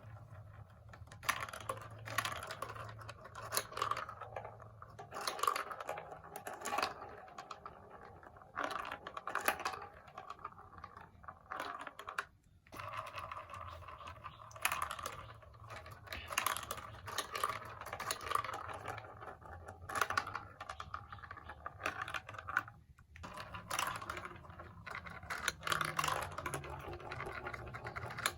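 Plastic marble run building pieces being handled, with irregular rapid clicks, taps and rattles of hard plastic knocking together, plus some rustling.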